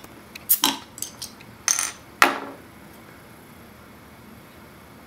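A metal bottle opener clicking and scraping on the crown cap of a glass beer bottle as the cap is pried off, ending in one loud metallic clink about two seconds in.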